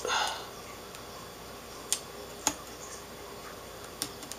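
A short crinkle as a small piece of shiny tape is handled and pressed into place on an LCD panel's metal backlight frame, followed by three light, sharp clicks from fingers working the tape against the frame.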